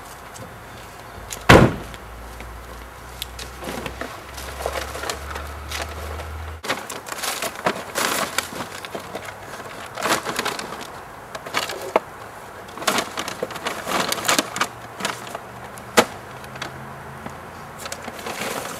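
Irregular clattering and rustling of litter being picked up by hand, with one sharp knock about a second and a half in and many small clicks and rustles after.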